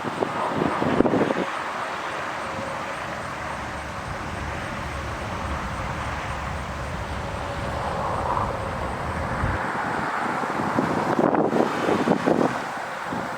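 Federal Signal STH-10 outdoor warning siren in its long wind-down after a test alert, a faint steady tone. Wind buffets the microphone near the start and again near the end, and a low rumble runs through the middle and cuts off suddenly.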